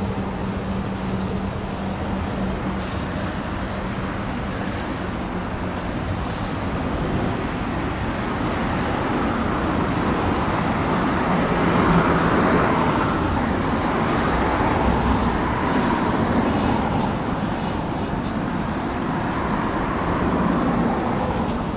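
Steady outdoor ambience of distant road traffic and wind, swelling louder a few times towards the middle and end. A low steady hum in the first few seconds fades out.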